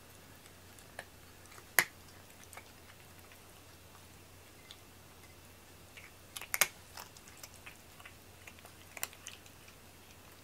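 A cat eating from a ceramic bowl: scattered sharp crunches and clicks, the loudest about two seconds in, a cluster around six and a half seconds, and another near nine seconds.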